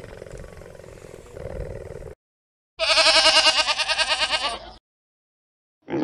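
A goat-family animal gives one loud, quavering bleat lasting about two seconds, near the middle. Before it, a quieter, steady low call from a cheetah fades out after about two seconds.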